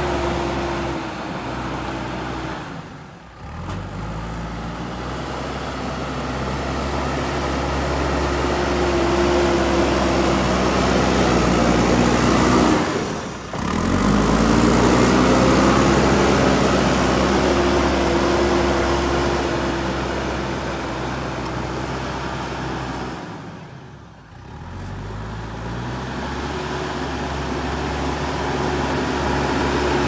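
JCB backhoe loader's diesel engine running under load as its front bucket pushes soil, its pitch rising and falling. The engine sound drops away briefly three times, then climbs again.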